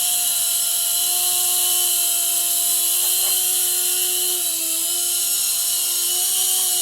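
LH-1211 micro coaxial RC helicopter hovering: its small electric motors and rotors give a steady high whine with a strong hiss, the pitch dipping briefly about four and a half seconds in as the throttle is trimmed.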